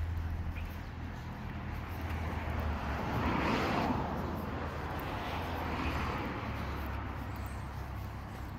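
Road traffic: a motor vehicle passing, its noise swelling to a peak about three and a half seconds in and then fading, over a steady low engine hum.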